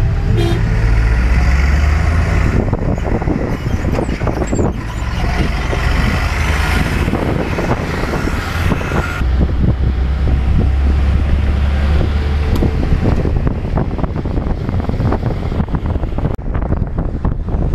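Motor vehicle on the move: a low engine and road rumble with constant irregular rattling and knocking, as over a rough road.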